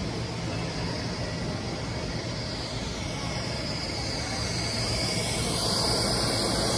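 Steady rushing background noise with a faint low hum, a higher hiss growing louder from about two-thirds of the way in.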